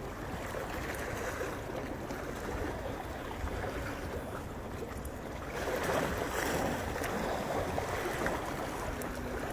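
Sea water washing against the rocky shoreline, a steady wash of surf that swells a little about halfway through.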